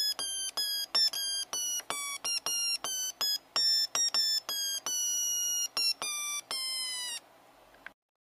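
Drawdio pencil synthesizer sounding a run of short electronic beeps through its small speaker as the pencil tip is touched to graduation marks along a graphite line, about two to three notes a second, the pitch stepping up and down with the resistance of the line between finger and tip. The last note is held about a second, sliding slightly down, and cuts off about seven seconds in.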